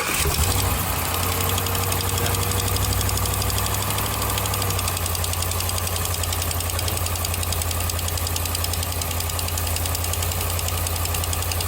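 Dodge Ram 5.7 Hemi V8 running just after start-up, with a rapid ticking in time with the engine. The tick is an exhaust leak at the manifold, where a broken and two missing manifold bolts let gas escape. The idle settles about five seconds in.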